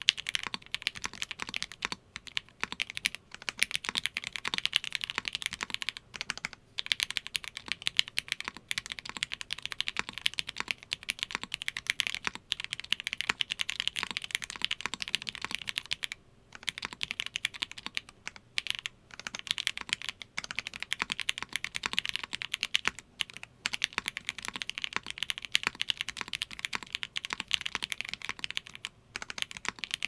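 Continuous fast typing on a polycarbonate-case ai03 Polaris 60% gasket-mount mechanical keyboard fitted with lubed ThicThock Marshmallow switches, a half-brass plate, lubed JWK stabilizers and GMK keycaps: dense keystroke clacks, broken by a few brief pauses.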